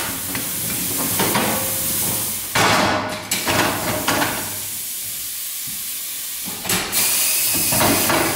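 Evert pneumatic tyre changer letting out loud bursts of compressed-air hiss as its bead breaker and turntable clamps work, with a few clunks as the wheel is handled on the machine. The hiss is loudest in the first two seconds and again near the end, with a quieter stretch in between.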